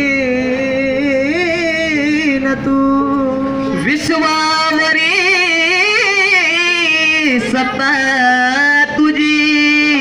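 Male voice singing a long, wordless line of held, wavering notes into a microphone over a PA, with a steady low drone underneath. There is a short break about four seconds in.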